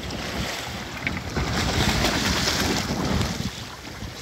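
Wind buffeting the microphone over choppy sea water splashing and sloshing against a small boat's hull.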